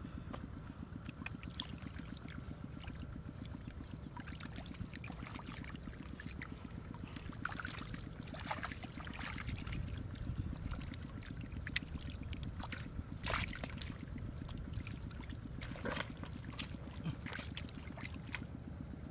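Water splashing and trickling in shallow floodwater, with scattered short clicks and splashes over a steady low rumble.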